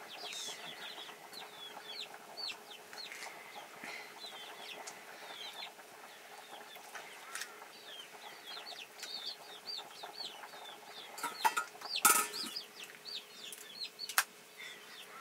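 Small birds chirping steadily: short, falling chirps, several a second. A couple of sharp knocks come about twelve seconds in and are the loudest sounds.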